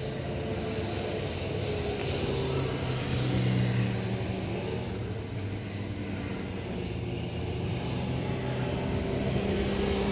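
A motor running steadily, a low hum with several tones that drift slightly in pitch.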